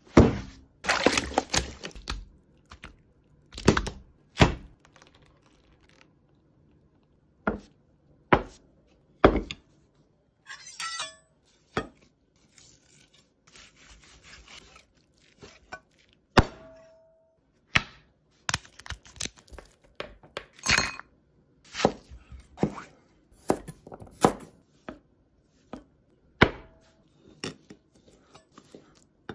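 Food-prep knocks and chops on a plastic cutting board: a foam box being handled, then a large kitchen knife cutting a red grouper and slicing A5 wagyu beef. The sharp knocks and thunks come irregularly, a second or two apart, and a few ring briefly; between them is softer cutting and scraping.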